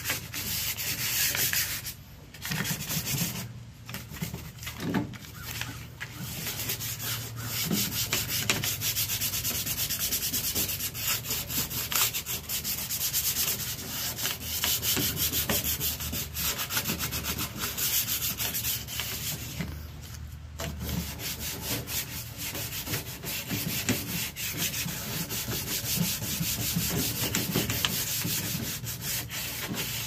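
Sanding a microwave's outer casing: fast, scratchy back-and-forth strokes that stop briefly about two, four and twenty seconds in. It is scuff-sanding to rough up the surface before primer and spray paint.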